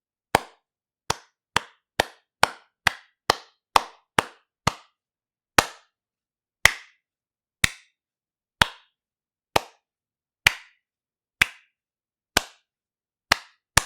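One pair of hands clapping, each clap crisp and separate with silence between: about ten quick claps at roughly two a second, then slower claps about one a second, picking up pace again near the end.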